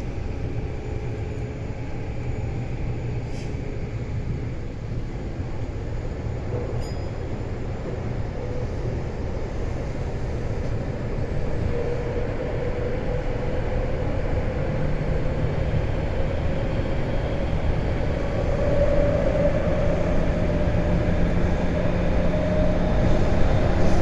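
Meitetsu 200 series electric train running: a steady low rumble of wheels and running gear, with a motor whine that slowly grows louder and edges higher in pitch through the second half.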